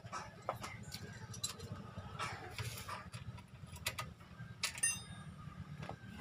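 Scattered light clicks and small metallic taps from hands working a motorcycle's handlebar controls, with one ringing metallic tick about five seconds in, over a faint low hum.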